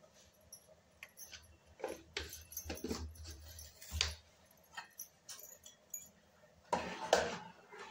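Scattered clinks and knocks of steel pots and utensils being handled at a gas stove, with a sharp knock about four seconds in and a louder clatter about a second before the end.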